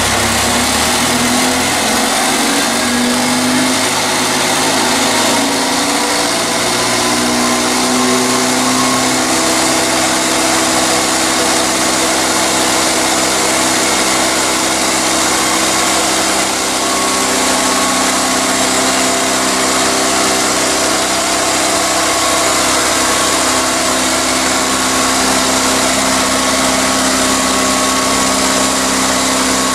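Engine running steadily, its pitch shifting up over the first several seconds and then holding even.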